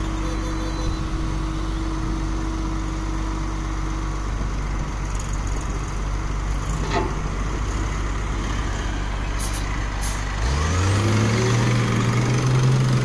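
Wheel loader's QSB6.7 six-cylinder diesel engine running steadily as the machine moves. About ten seconds in, a closer tractor's diesel engine revs up, louder, its pitch rising quickly and then holding.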